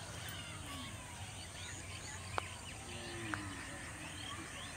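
Rural outdoor ambience: many birds chirping and calling, over a steady high-pitched insect drone. Two short sharp clicks sound, one about two and a half seconds in and another about a second later.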